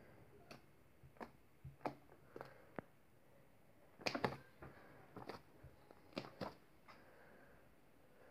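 Green slime being squeezed and worked by hand, making faint, irregular small clicks and pops, with a quick cluster of them about halfway through.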